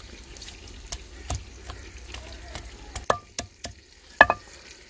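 Wooden pestle pounding ginger in a stone mortar: irregular knocks and crunches as the ginger is crushed into paste. The blows come sharper and closer together in the second half, the loudest a double knock near the end.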